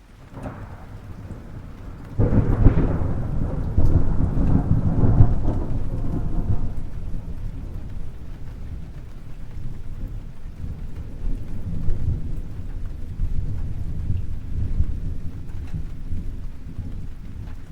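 Thunderstorm: rain, then a sudden loud thunderclap about two seconds in that rumbles heavily for several seconds and then rolls on more quietly, swelling now and then.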